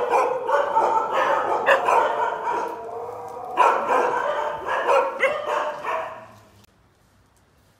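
Several dogs barking and yipping at once, their calls overlapping in a continuous run, until the barking dies away about six and a half seconds in.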